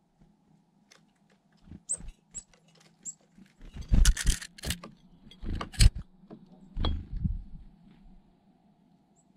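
Black-capped chickadee fluttering close to the microphone: quick bursts of wingbeats and small taps, loudest about four seconds in and again twice after. A few short, high peeps come before.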